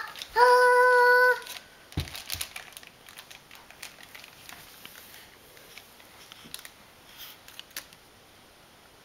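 A toddler boy holds one high sung note for about a second, then stops. After that there are only faint clicks, a soft thump and light crinkling as he handles a small toy.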